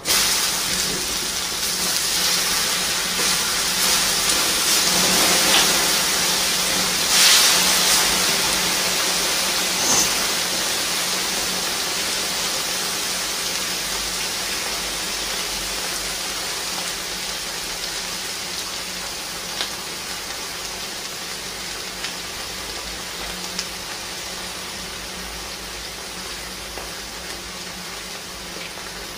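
Steady hissing and crackling of a laptop burning and smoking under glowing molten lava. It is loudest about seven seconds in and slowly dies down.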